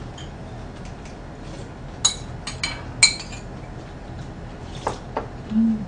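Metal chopsticks and utensils clinking against ceramic bowls and glass at a meal table: a few sharp clinks about two to three seconds in, the loudest just after three seconds, and two lighter ones near the end.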